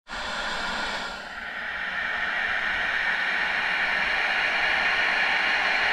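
Steady hiss of underwater ambient noise picked up through a dive camera's housing, with a brief dip a little after a second in.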